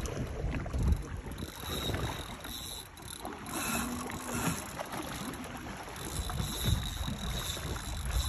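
Water lapping and sloshing against a small boat's hull, with wind rumbling on the microphone.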